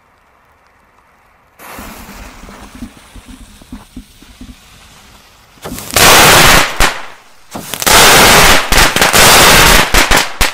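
A Vulkan Öko crackling ball firework (cardboard-cased crackling stars) going off. It hisses and sputters for about four seconds, then breaks into a loud, dense crackle of many tiny pops about six seconds in, stops briefly, and crackles again in a second long run near the end.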